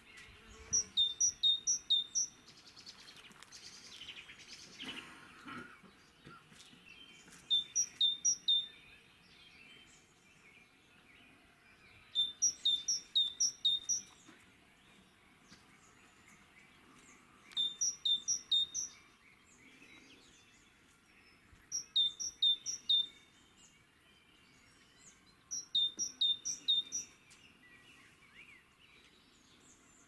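A small songbird singing short phrases of four to six quick, sharp, high notes, repeated about every four to five seconds.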